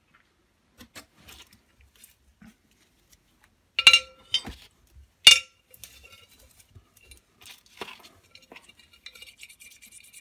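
Small steel parts clinking against a glass bowl of paraffin: two sharp, ringing clinks about four and five seconds in, a few weaker knocks, then light clinking and scraping near the end as a part is brushed in the liquid.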